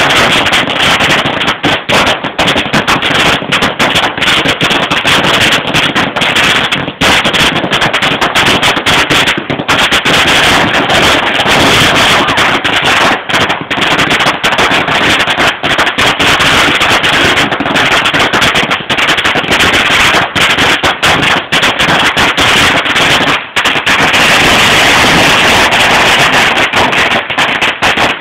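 A long string of Chinese firecrackers going off in a rapid, unbroken crackle of bangs, loud throughout.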